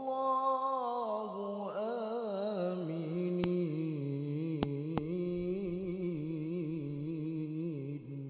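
A man's voice in Quranic tilawah recitation, drawing out one long melismatic phrase with quick, wavering ornamental turns in pitch. The voice settles lower after about two seconds and fades near the end.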